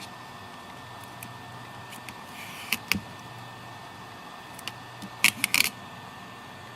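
Sharp clicks and taps of small tools and tablet parts being handled during a screen replacement: two just before three seconds in, then a quick cluster of about four some five seconds in, over a steady low hum.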